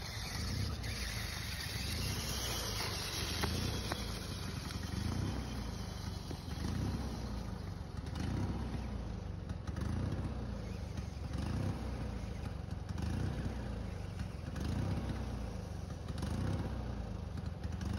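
Remote-control monster truck driving over dry leaves, its motor revving up and down over and over.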